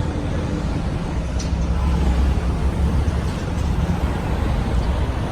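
A car driving on the road: a steady low rumble of engine and tyre noise.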